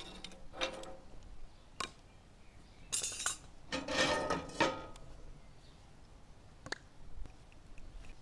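Metal clanks and scrapes on a wood-fired stove's metal top: the stove's lid rings knocked about with a lid hook and a metal frying pan slid across the stovetop over the firehole. A few separate clanks, with the longest scrape about four seconds in.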